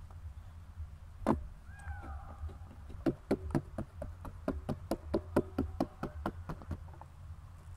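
Fingertips pressing and dimpling pizza dough in a thin enamel-steel baking tray, making a quick, uneven run of sharp taps, about four or five a second, after a single louder knock.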